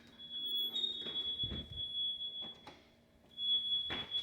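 Smoke alarm sounding a steady high-pitched tone that breaks off for a moment about three seconds in and then starts again, with a couple of faint knocks.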